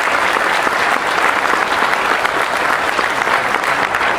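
An audience applauding steadily, a dense patter of many hands clapping that tails off near the end.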